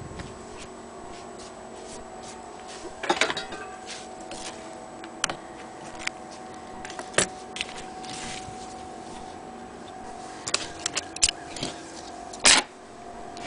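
Scattered clicks and knocks from hands working the metal parts of an antique Frister & Rossmann sewing machine, with a cluster about three seconds in and the loudest clunk near the end, over a steady faint hum.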